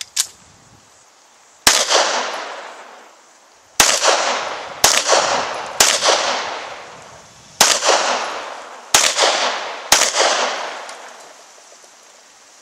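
Seven handgun shots fired one at a time, about one to two seconds apart. Each shot rings out in a long echo that fades over a second or more.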